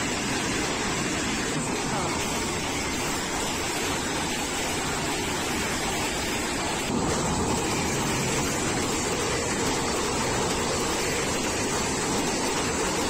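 Passenger train coaches running past close by at speed: a steady rush of wheels on rail and moving air, a little louder from about seven seconds in.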